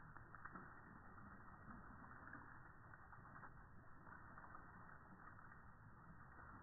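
Faint, muffled water noise from a garden hose stream splashing as a dog drinks from it, slowed down and lowered in pitch by slow-motion playback. A few crackly splashes in the first few seconds fade to a steady low hiss.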